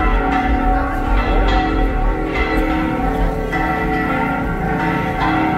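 Church bells pealing from a bell tower: several bells struck again and again, their tones lingering and overlapping into a resounding, continuous ring.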